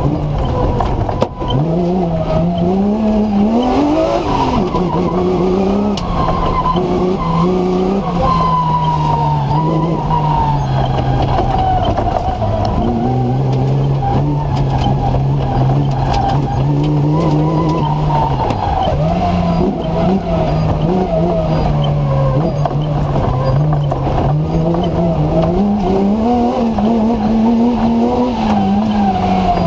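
BMW M3 engine in a TMC comp safari racer, heard from inside the car, revving up and down over and over through the gears under hard driving. A sharp knock sounds about a second in.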